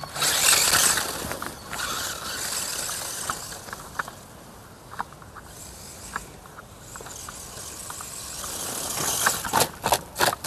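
Remo Hobby Smax RC truck on 3D-printed air-chamber tyres driving over dry leaves, dirt and grass: a hissing rustle of motor and tyres, loudest about a second in, easing off in the middle and building again. A run of sharp clicks and crackles comes near the end.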